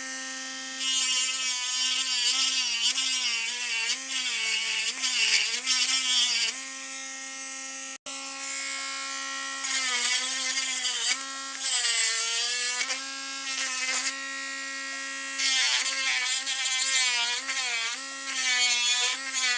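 Dremel rotary tool running at high speed with a steady whine that repeatedly sags in pitch and recovers as the bit bites into a plastic air-horn bell, boring it out. The sound breaks off for an instant about eight seconds in.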